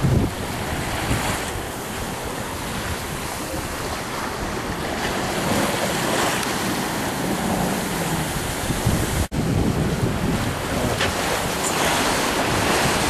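Strong wind buffeting the microphone over the rush of open-sea waves around a sailboat under way. The sound drops out for an instant about nine seconds in.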